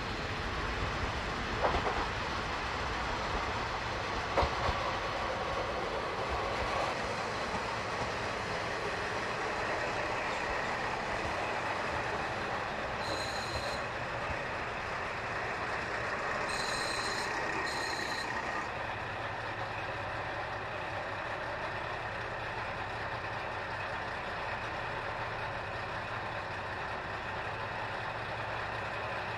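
KiHa 40-series diesel railcar running into the station, a steady engine and wheel rumble with a couple of sharp clicks in the first few seconds. A short high electronic beep sounds once about 13 seconds in and twice around 17–18 seconds, and the low engine hum holds steadier toward the end as the railcar stands idling.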